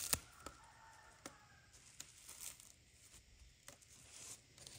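Clear plastic wrap being peeled off and crinkled in the hand: one sharp crackle right at the start, then faint, scattered crinkles and ticks.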